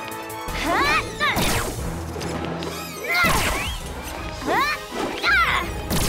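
Cartoon action-scene soundtrack: dramatic music with crash and whoosh effects, and about four short swooping sounds that rise and fall in pitch.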